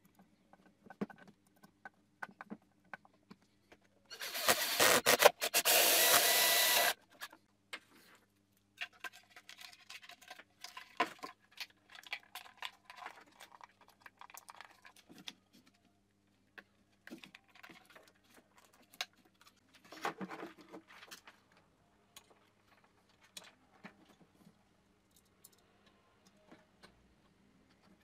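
Small clicks, rattles and scrapes of hands handling plastic headlight parts, a screwdriver and wiring. About four seconds in, a loud noisy rush lasts about three seconds.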